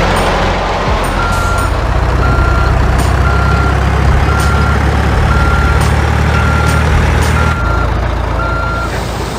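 Vehicle reversing alarm beeping about once a second, a steady single-pitched beep, over the low steady rumble of a diesel engine.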